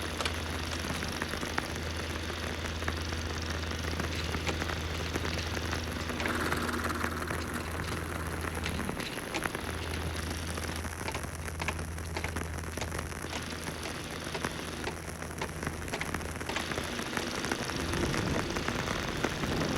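Old-film sound effect: dense crackle, pops and hiss over a steady low hum. The hum drops out briefly about nine seconds in.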